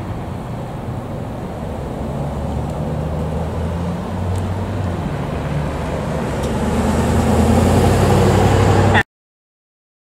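A passing road vehicle's engine hum with tyre and road noise, growing louder as it approaches, then cut off abruptly about nine seconds in.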